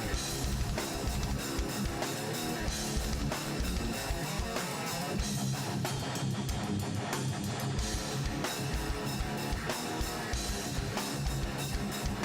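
Background music: guitar-led band music with strummed guitar over a drum kit, at a steady beat.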